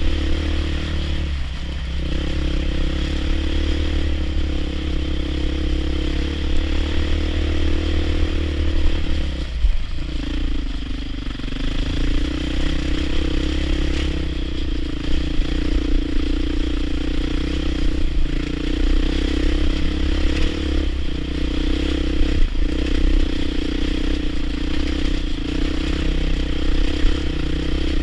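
Off-road motorcycle engine running at a fairly steady throttle while riding a muddy trail, the engine note dipping briefly about ten seconds in before settling again, over a heavy low rumble.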